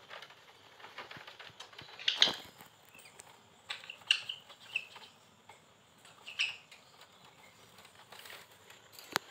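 Conure chicks, sun and yellow-sided, scuffling and flapping their wings on a wire-mesh crate floor as they are handled. The sound comes in scattered short rustles, with a few brief high chirps and a sharp click near the end.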